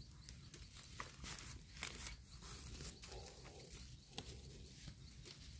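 Faint, scattered rustles and light clicks of handling on the forest floor, over quiet outdoor background.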